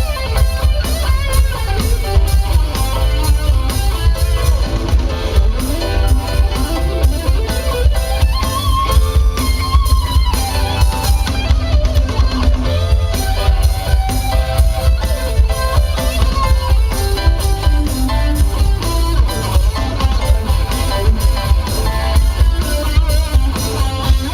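Live rock band playing an instrumental passage: electric guitar over bass and drum kit, loud and continuous.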